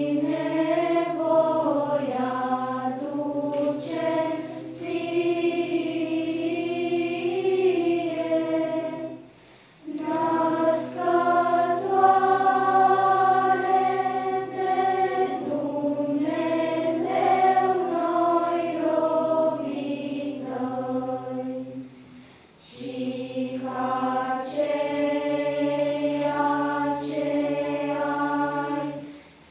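Children's choir singing together in sustained phrases. The singing breaks off briefly twice, about a third of the way in and again about three quarters through.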